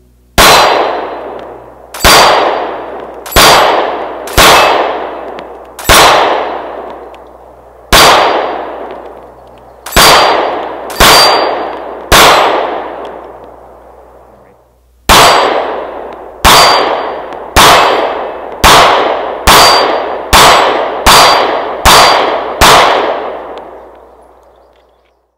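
Smith & Wesson M&P Shield 9mm pistol fired eighteen times, in two strings of nine with a pause of about three seconds between them, each shot a sharp crack with a long fading tail. Steel plate targets clang as they are hit.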